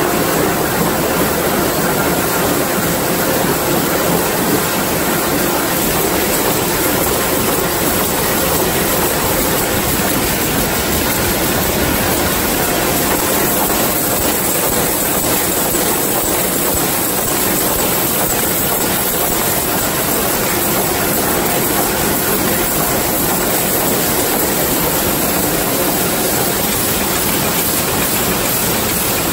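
Hollow-pin production machines running in a factory: presses stamping and forming metal strip, making a loud, dense, steady clatter with no let-up.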